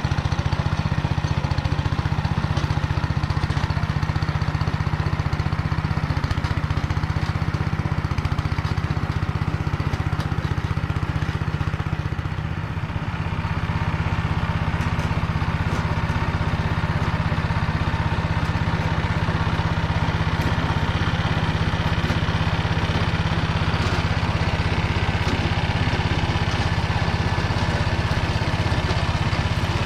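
Engine of a tillage machine running steadily under load while driving a Motor Sich rotary tiller through hard, dry soil, its gearbox freshly rebuilt with new bearings. The engine note dips briefly about twelve seconds in, then picks up again.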